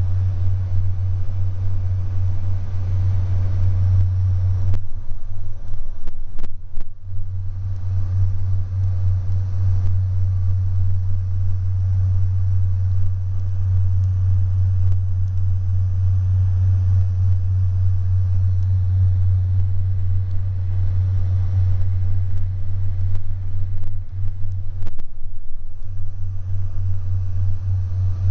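Passenger train running at speed, heard from inside the carriage as a steady low rumble, with a few faint clicks a few seconds in and again near the end.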